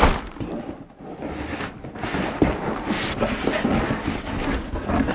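A long cardboard box being handled and opened: irregular scraping and rustling of cardboard, with a sharp knock at the start and another about two and a half seconds in.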